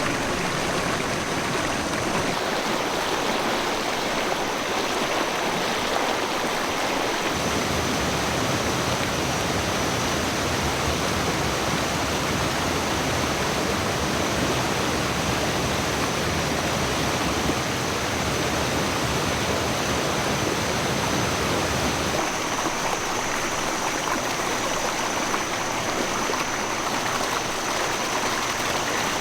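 Waterfall and stream water rushing steadily, an even hiss of falling water, with a thin high steady tone above it. The low rumble is fuller from about seven seconds in until about twenty-two seconds.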